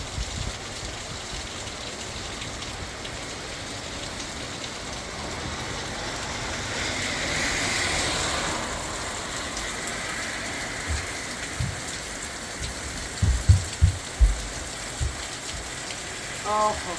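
Heavy rain pouring down steadily. A louder rushing swell builds and fades over a few seconds midway, and a few short low thumps come in the second half.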